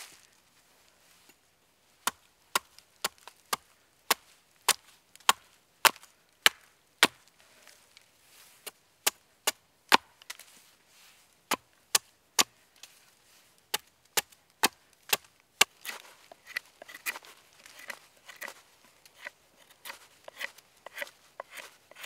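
Hatchet chopping a point onto a wooden stake braced against a stump: sharp single wood-on-steel strikes, about two a second, beginning about two seconds in. Near the end the strokes turn lighter and come more quickly.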